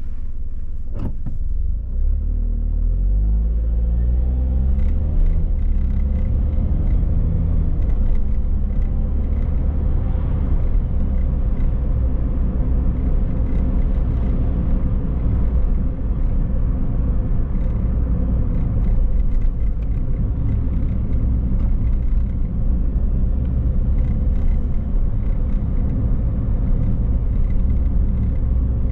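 Car driving: a steady low rumble of engine and road noise. A couple of sharp clicks come in the first second. From about two seconds in the engine tone rises in steps as the car pulls away and accelerates, then it settles into steady driving.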